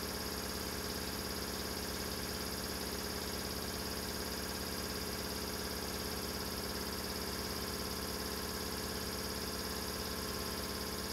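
Steady electrical hum and buzz, unchanging in pitch and level, that cuts off abruptly at the end.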